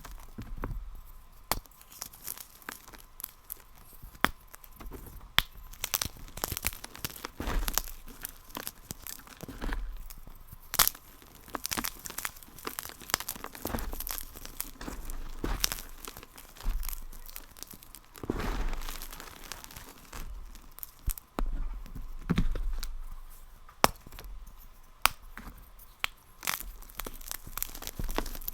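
Brittle material being crunched and crushed: a dense, irregular run of sharp cracks and snaps with crumbling rustle between them.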